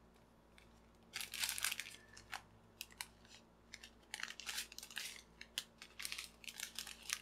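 Small clear plastic bags of diamond painting drills crinkling as they are handled, in irregular short bursts, busiest about a second in.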